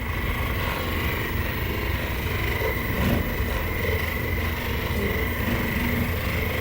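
Electric motor of a powered treatment table running steadily, a low hum under a steady high whine, as the table raises the patient toward sitting.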